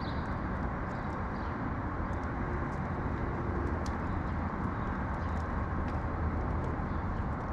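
Steady low rumble of distant city traffic, with a few faint, brief bird chirps above it.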